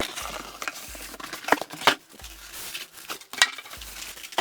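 Packaging and case accessories being handled during an unboxing: rustling and crinkling, with a few sharp clicks and knocks, the strongest about one and a half, two and three and a half seconds in.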